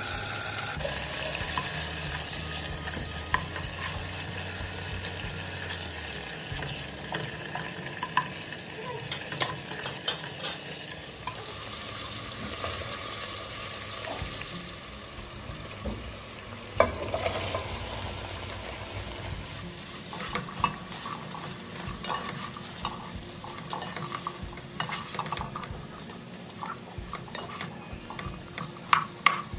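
Sliced chicken and shrimp sizzling in hot oil in a pot, then garlic, green chillies and chopped vegetables frying as a spatula stirs them. Scattered light knocks and scrapes of the spatula against the pot, more frequent in the second half.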